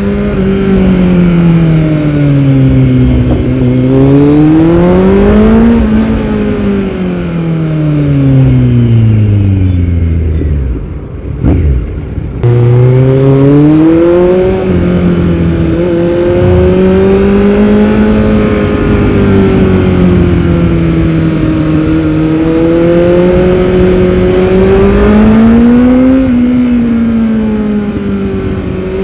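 Kawasaki Z900's inline-four engine through a Yoshimura R77 full-system exhaust, ridden on the road. Engine speed falls and rises as the throttle is rolled off and on, sinks low with a brief dip in loudness about eleven seconds in, then picks up again and holds a fairly steady cruise with gentle swells.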